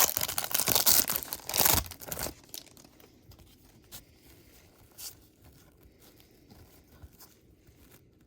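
A trading card pack wrapper being torn open and crinkled in the hands, a loud crackling that lasts about two seconds. After it come a few faint clicks as the cards are handled.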